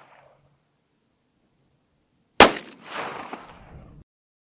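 A single sharp pistol shot from a Ruger Mark II firing .22 LR CCI Stinger, about two and a half seconds in, followed by a trailing echo that cuts off suddenly about a second and a half later.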